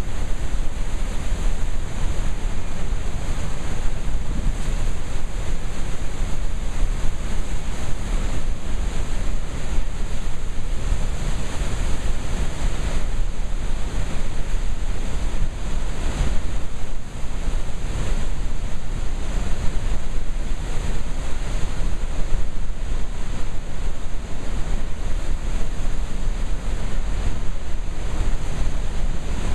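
Flood release from Oahe Dam at about 130,000 cfs rushing and churning into white water and spray: a loud, steady wash of water noise with a strong low rumble.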